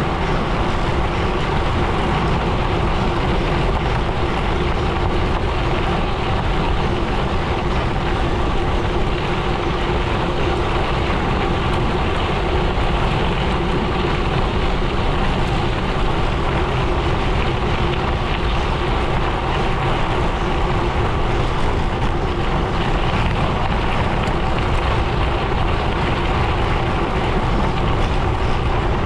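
Gravel bike tyres rolling over a gravel road in a steady crunching rush, with wind on the microphone.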